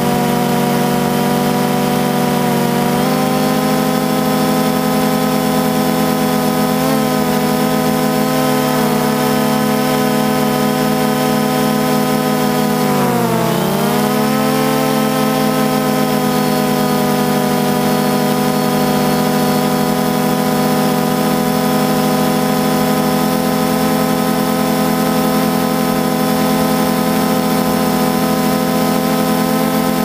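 DJI Phantom 2 quadcopter's four brushless motors and propellers whining steadily, heard from the drone's own onboard camera. About thirteen seconds in, the pitch dips sharply and climbs back as the motors throttle down and up again.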